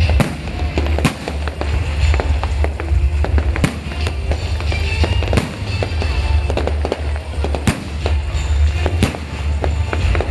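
New Year fireworks going off near and far: irregular sharp bangs and crackles, a few every second, over a continuous low rumble of distant bursts.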